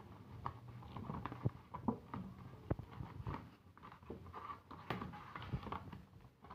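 A cardboard juice carton being opened by hand, its flap pulled open and a plastic-wrapped bottle handled inside: a faint scatter of irregular taps, scrapes and rustles.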